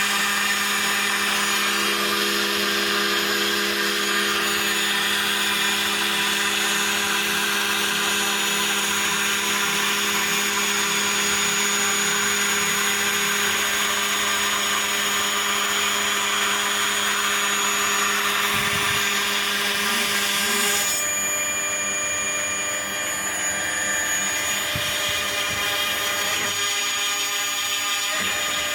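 Homemade CNC router with a 1.5 kW VFD-driven spindle running, cutting foam, with a high steady whine and a lower hum over a hiss. The hiss stops suddenly about two-thirds of the way in, leaving the whine and hum running.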